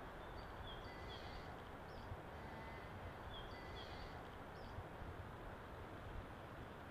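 Quiet woodland ambience: a steady faint hiss with short, high bird chirps now and then.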